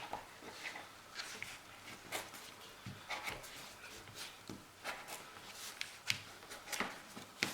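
Faint, scattered clicks and rubbing from a pocketknife and paracord being handled on a cutting mat, about half a dozen small ticks over several seconds.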